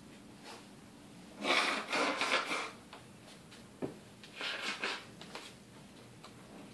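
Pencil scratching on workbook paper as a child draws circles: two spells of scribbling, the first over a second long, the second shorter, with a light tap between them.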